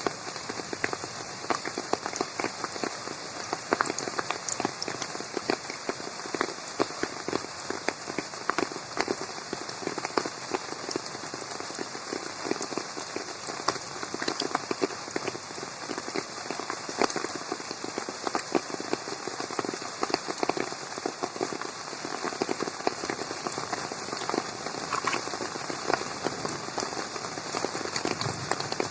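Steady rain falling on a garden pond and the plants around it, a dense patter of many small drops.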